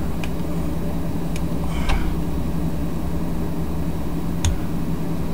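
A steady low hum runs throughout, under a few faint clicks and a brief crackly rustle from hands working at the packaging of a Zippo lighter to open it.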